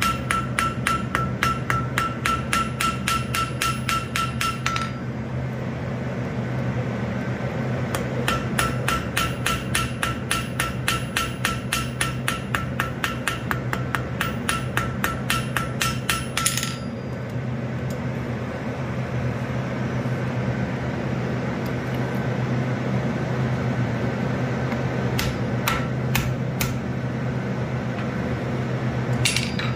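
Ball peen hammer striking a small piece of hot steel held in tongs on an anvil, with the anvil ringing on every blow, about four blows a second in two runs: for the first five seconds, then from about eight seconds to about sixteen and a half. After that come only a few single taps, over a steady low hum.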